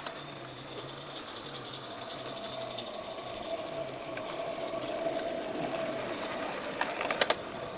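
Small live steam model locomotive running on a garden railway, a steady mechanical sound, with a quick run of sharp clicks about seven seconds in.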